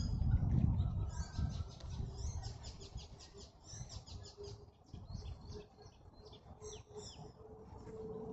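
Small birds chirping and singing in quick high-pitched runs of notes, several a second, fading near the end. A low rumbling noise during the first second or so is louder than the birds.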